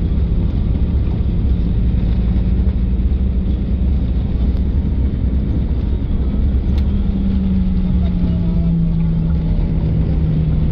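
A passenger bus heard from inside while it drives: steady engine and road rumble. The engine's hum drops slightly in pitch over the last few seconds.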